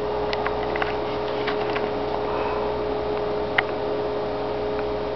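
Steady machine hum with a few faint clicks, the clearest about three and a half seconds in.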